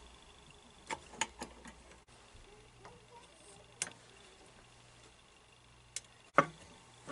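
Scattered light clicks and taps of small parts being handled on a tin toy sewing machine, a quick cluster about a second in, a few single ones after, and the loudest knock near the end.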